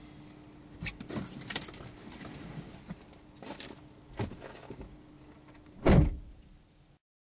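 A person climbing out of a vehicle's driver's seat: scattered clicks and rustling, then the driver's door shut with a heavy thump about six seconds in.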